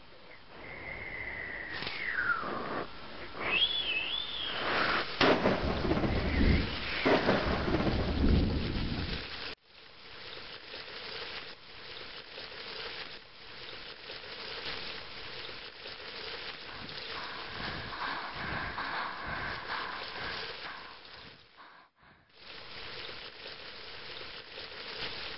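Thunderstorm: rain with a loud rumble of thunder over the first several seconds, mixed with gliding whistle-like tones. After an abrupt cut it gives way to steady rain, which drops out briefly near the end.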